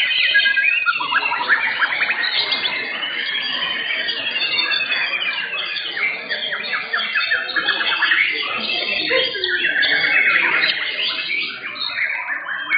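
Several white-rumped shamas singing at once in competition: a dense, continuous tangle of overlapping rapid chirps and trills, with a brief lull near the end.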